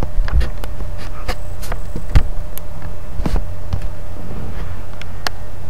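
Pellet stove running with a steady low hum, with scattered sharp clicks and knocks over it.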